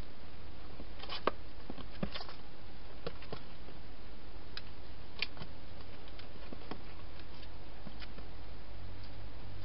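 Wild hedgehog feeding inside a plastic feeding box: irregular sharp clicks and crunches from its chewing and from its movements against the plastic, over a steady low hum.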